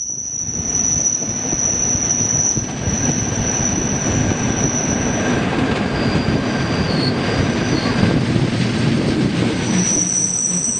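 Rhaetian Railway train running around the tight curve of the spiral viaduct, its wheels squealing on the curving rail over a steady running rumble. The high, steady squeal is strong at first, fades about halfway through and comes back near the end.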